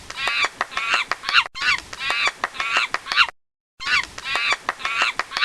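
Monkey calling: quick, high-pitched cries repeated several times a second, in three stretches with a short break a little after three seconds in.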